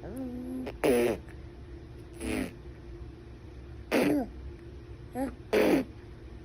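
A baby making short babbling and grunting noises: about six brief vocal sounds, some falling in pitch at the end.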